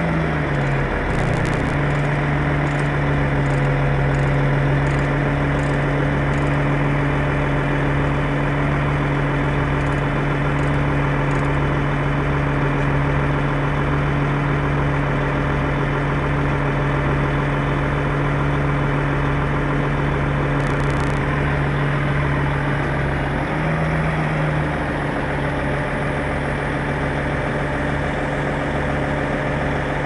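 Heavy diesel engine idling steadily with a regular low pulsing. The engine note rises briefly about two-thirds of the way through.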